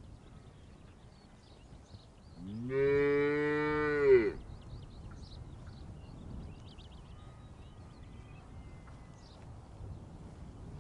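A single long call from a large animal, about two seconds, rising in pitch at the start and dropping away at the end, over a faint background hiss with a few faint high chirps.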